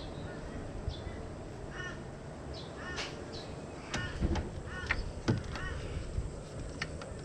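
A crow cawing several times in short calls, with a few sharp clicks and two low thumps from handling about four and five seconds in.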